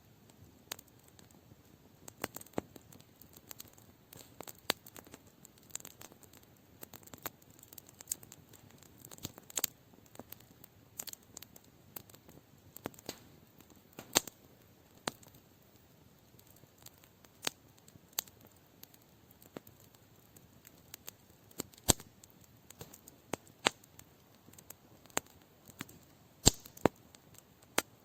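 Wood campfire crackling, with irregular sharp pops and snaps coming a few times a second over a quiet background.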